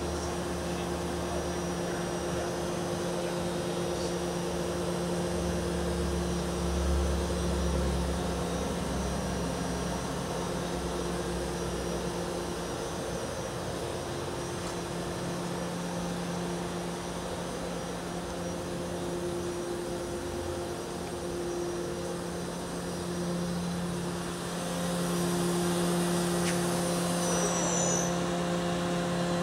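KURAKI KBT-11WA CNC horizontal boring mill running: a steady mechanical hum with a constant low whine, getting a little louder about 25 seconds in. A short high-pitched tone falls in pitch near the end.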